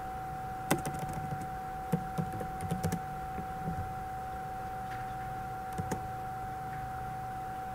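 Computer keyboard typing: scattered keystrokes in the first few seconds and two more near six seconds, over a steady whine that runs throughout.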